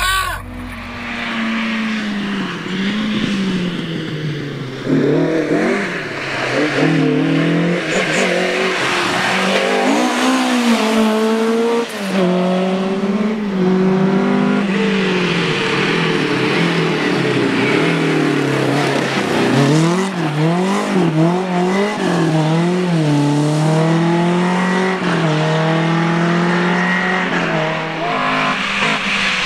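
Rally car engines revving hard and shifting up and down through the gears as the cars approach and pass along a tarmac stage; the engine pitch climbs and drops again and again.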